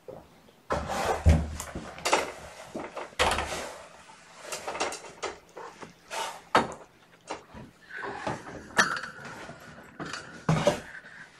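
A plastic pet carrier being handled and set down: a string of sharp knocks and clatters with scraping and rubbing. A thin steady tone runs for about three seconds near the end.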